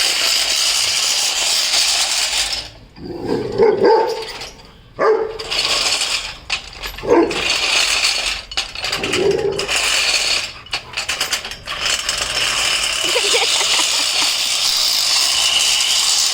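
Rottweiler puppy barking and growling in several short bouts over the steady running of a lawn mower.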